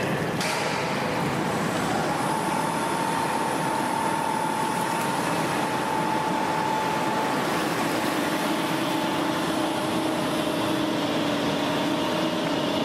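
Helicopter underwater egress trainer cabin being lowered on its crane hoist into a pool and sinking: a steady rushing noise of machinery and water, with a faint whine that drops to a lower pitch about seven seconds in.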